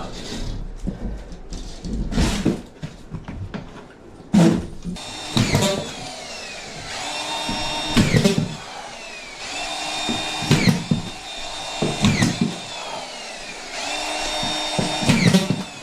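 Knocks and clatter, then a power drill run in short spells of about two seconds, four or five times, each winding down with a falling whine as the trigger is released.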